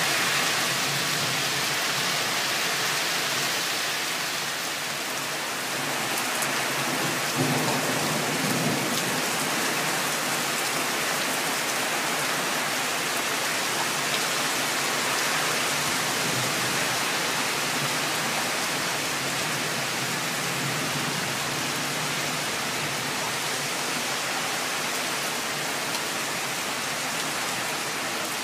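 Steady downpour of thunderstorm rain, with a short low rumble of thunder about seven seconds in.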